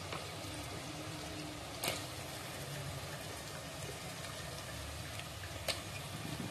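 Chopped onions sizzling steadily in hot oil in a pot, over a low hum. A sharp knock about two seconds in and another near the end come as chopped tomatoes are added to the pot.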